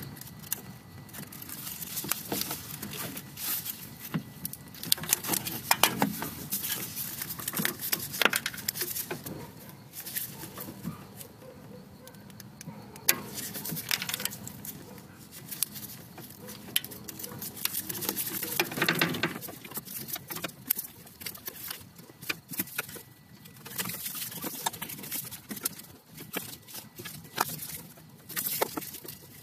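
Brittle plastic of a failed coolant T-junction connector cracking and crunching as it is crushed off the pipe with groove-joint pliers. Irregular small cracks and clicks, with a few louder crunches.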